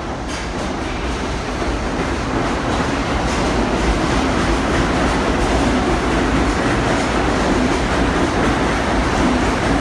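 R62A subway train running past the platform, a dense rumble that grows louder through the first few seconds as it gathers speed, with the wheels clicking over the rail joints.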